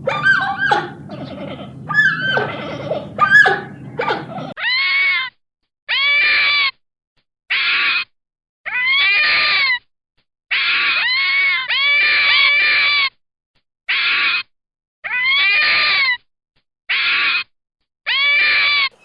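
An animal's yelps and cries over a low rumble, then a series of loud, high screaming animal calls, each under a second long and cut off sharply.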